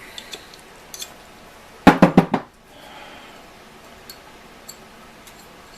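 Hammer striking a steel pin to drive it through a Model T pedal and its shaft: four quick, sharp blows in about half a second, about two seconds in, with a few light metal clicks around them.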